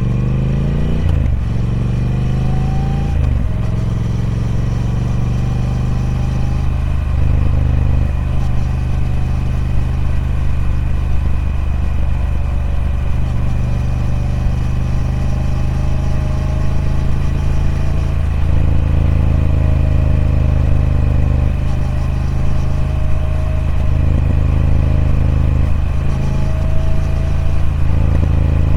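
Triumph Speed Twin 1200's 1200cc parallel-twin engine through its stock exhaust, under way: it pulls up through the gears with several quick gear changes in the first few seconds, then runs steadily, with the pitch dipping and climbing again at a few more shifts.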